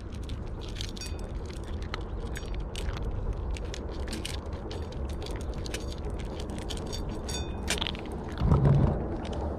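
Cats crunching dry kibble and nosing it around shallow stainless-steel plates: quick, irregular crunches and clicks, with a few light metallic clinks. There is a steady low rumble underneath and a brief louder low sound near the end.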